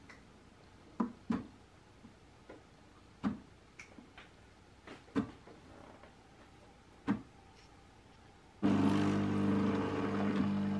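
Bosch Tassimo pod coffee machine brewing: a few soft clicks as it prepares, then near the end its pump starts with a sudden, steady, loud hum and a hiss of hot water as coffee begins to flow into the glass.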